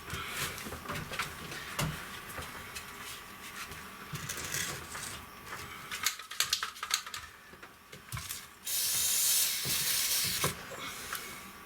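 Aerosol can of sealant spraying in one steady hiss of about two seconds near the end, after a run of small clicks and rustles from handling the can.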